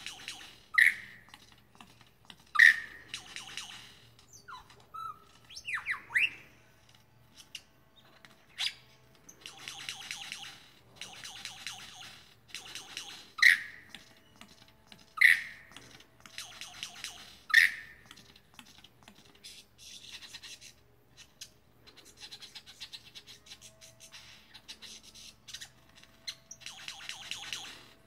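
Lyrebird singing: loud, sharp single notes every few seconds, bursts of fast rattling chatter, and a pair of rising whistles about six seconds in.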